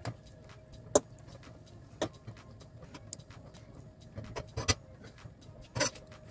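Metal fork clinking and scraping against a frying pan as chicken wings are turned in it: sharp separate clicks about a second apart, then a few closer together later on.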